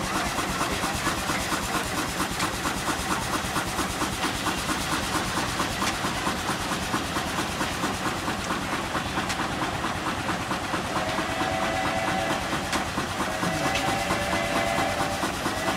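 Antique steam traction engine running belted to a load, its exhaust chuffing in a quick, even beat over a steady steam hiss. A steady higher-pitched tone joins in over the last few seconds.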